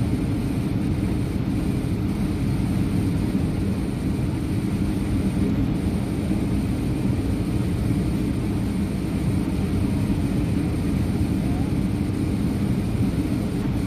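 Steady cabin rumble of an Airbus A320-200 on its landing approach, heard from a window seat beside the wing: jet engine and airflow noise, deep and even throughout.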